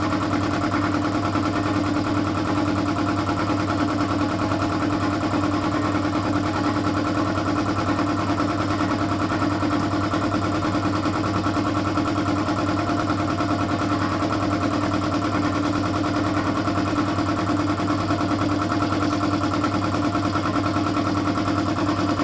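A 2 hp air compressor running steadily, its motor and pump giving a constant hum with a fast, even chatter.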